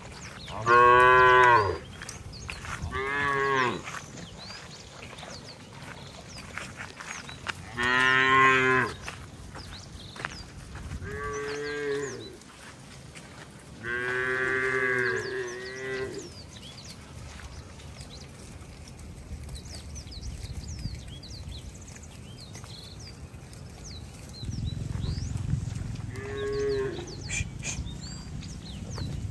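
Herd of cattle mooing: about six separate moos, the loudest about a second in, one long drawn-out moo around the middle and a weaker one near the end. A low rumble sets in over the last few seconds.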